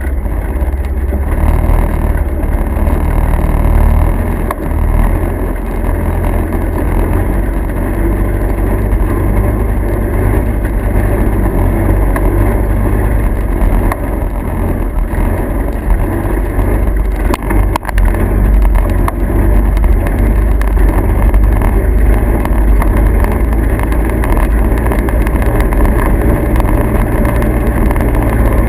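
Steady low rumble of a vehicle in motion, engine and road noise.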